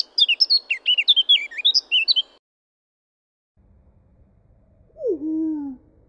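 Eurasian blackcap song: a rapid warbling phrase of quick high notes lasting about two and a half seconds. After a short pause the song plays again slowed right down, so that near the end it comes as one low, drawn-out falling note.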